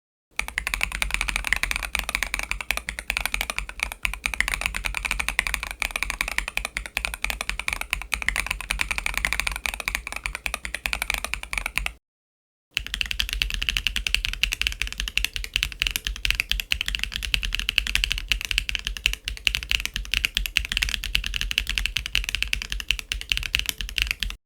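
Fast, continuous typing on a mechanical keyboard fitted with Wingtree Yunie tactile switches: a dense stream of key clacks. It stops for a moment of silence about 12 seconds in, then goes on as a second run of typing with a sharper, brighter clack.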